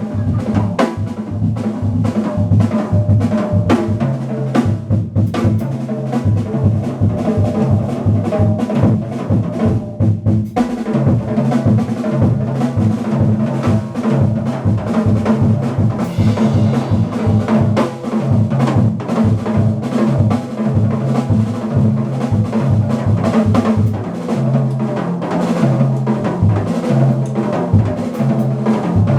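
Small jazz band playing live, with the drum kit to the fore and a bass line moving note to note underneath.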